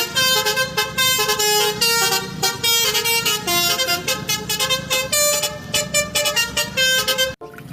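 Telolet bus horn, a musical multi-tone horn, playing a quick melody of changing notes that cuts off suddenly near the end.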